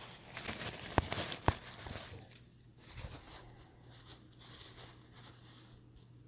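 Guinea pig feeding: rustling and crunching of food and bedding, with two sharp clicks about a second and a second and a half in, then fainter rustling.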